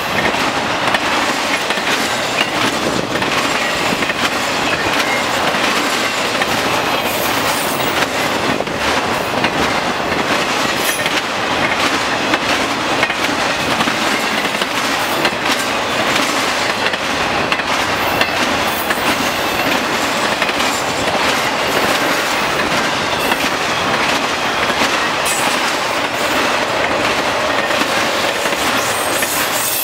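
Loaded intermodal well and spine cars, carrying containers and highway trailers, rolling past at speed: a steady rumble of steel wheels on rail, with scattered clicks as the wheels cross rail joints.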